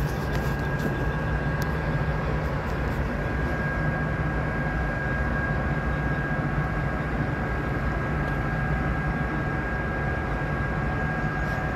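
Cargo ship's machinery running steadily: a low drone under a constant high whine.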